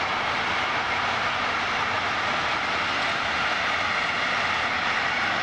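Long freight train of container flatcars rolling past across the river: a steady, even rushing noise with no distinct clicks or horn.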